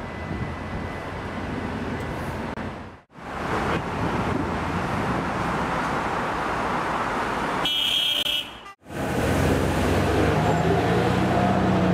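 Busy street traffic noise, broken into three sections by abrupt cuts, with a short high-pitched beep just before the second cut about eight seconds in. The last section is louder.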